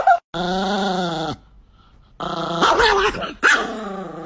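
Chihuahua growling in three drawn-out, pitched grumbles, one after another with short pauses between.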